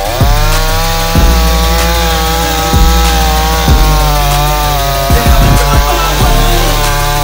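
Premium 45cc two-stroke petrol chainsaw revved up sharply to high speed and held at full throttle, its pitch dipping briefly and climbing back in the middle. A hip hop beat with a heavy bass plays underneath.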